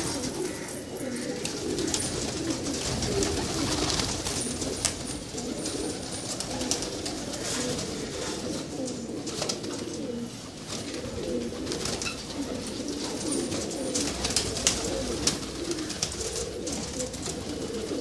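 A large flock of domestic pigeons cooing together, many overlapping calls with no break, with occasional sharp clicks.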